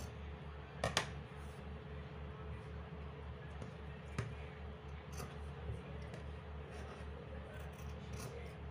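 Scissors snipping through cloth, faint, with a sharp click about a second in and another about four seconds in, over a steady low hum.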